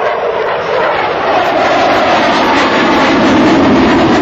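F-15C Eagle's twin Pratt & Whitney F100 turbofans in afterburner during a close pass. The jet noise swells to its loudest near the end and sinks in pitch as the fighter goes by.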